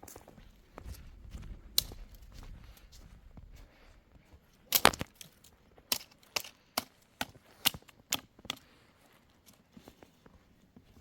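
Low rustling, then sharp knocks: a loud cluster about five seconds in, followed by about seven evenly spaced knocks roughly half a second apart.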